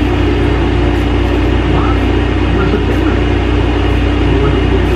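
Window air conditioner running with a steady, unchanging low hum and drone.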